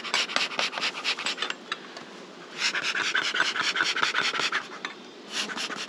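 Beekeeper's smoker being puffed: hissing spells of air, two longer ones and a short one near the end, with many rapid fine ticks through them.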